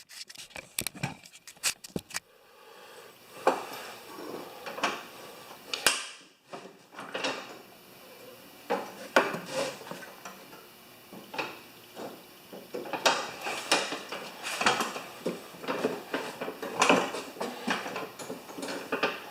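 Irregular metal clinks and knocks of small steel parts and hand tools being handled while a mower deck's linkage is fitted under a yard tractor.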